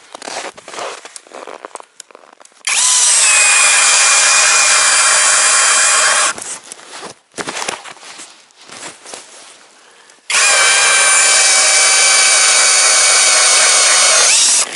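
Heimerdinger cordless drill driving a 130 mm Iceberg ice auger into the ice: two runs of steady motor whine with grinding, each about four seconds long. Between them come a few seconds of quieter handling and scraping.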